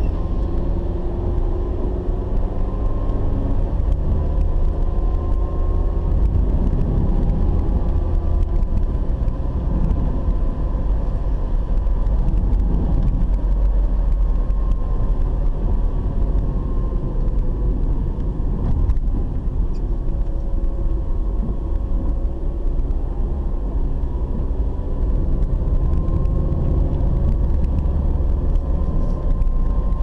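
Car in motion heard from inside the cabin: the engine and tyres make a steady low rumble, with faint tones that slowly rise and fall in pitch as the speed changes.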